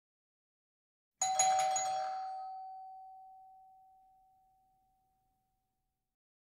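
A bell-like chime sounds about a second in: a quick cluster of bright strikes, then one clear tone that rings on and fades away over several seconds. It is set in complete silence, as a sound effect marking a change of segment.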